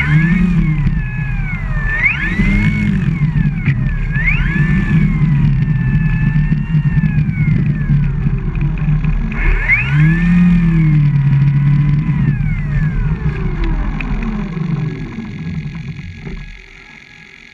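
RC tow plane's propeller motor heard from on board, running loud with its pitch rising and falling several times as the throttle is worked while it taxis, then easing off near the end.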